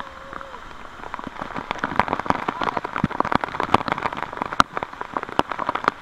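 Waterfall spray and falling water drops striking the camera at close range: a dense, irregular patter of sharp taps over the steady hiss of the falls.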